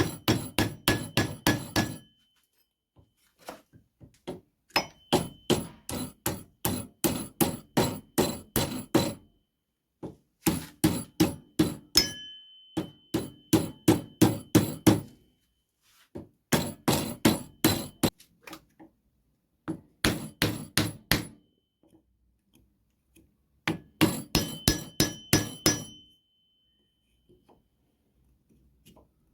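Hammer blows in quick runs of about four or five strikes a second, with pauses of a second or two between runs, while an ax is being rehandled. Some blows leave a short metallic ring.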